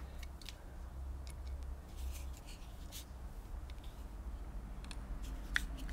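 Faint, irregular clicks and scrapes of a hand tool and small metal parts as the diaphragm cover screws of a Bing carburettor are worked and nipped up, over a low steady hum.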